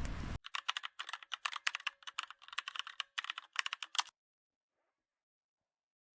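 Computer keyboard typing: quick runs of sharp keystroke clicks for about three and a half seconds, then dead silence. A short rush of outdoor noise cuts off abruptly just before the typing starts.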